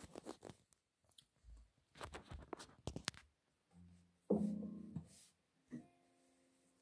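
Light clicks and knocks of a phone being handled and set in place, then a faint acoustic guitar chord strummed about four seconds in and left ringing, with a second soft touch on the strings near the end.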